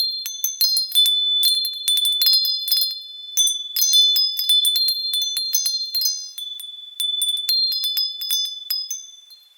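Wind chimes ringing, struck many times in quick irregular succession, with high clear tones that overlap and ring on. The ringing dies away near the end.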